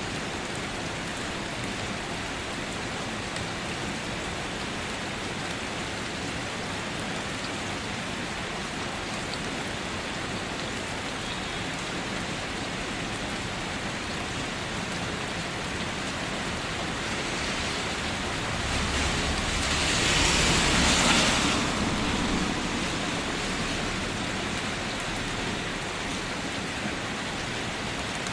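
Steady rain falling on a surface, an even hiss. About two-thirds of the way through it swells for a few seconds, louder and with a low rumble underneath, then settles back.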